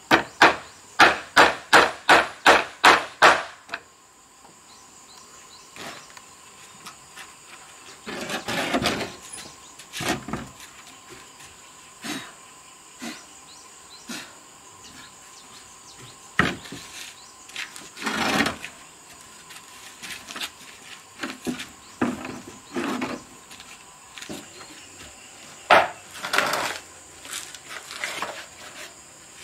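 About eight quick, evenly spaced strokes of a hand tool worked back and forth on a wooden board, then scattered knocks, scrapes and rustles as a wooden plank door is handled and a plastic tool case is opened.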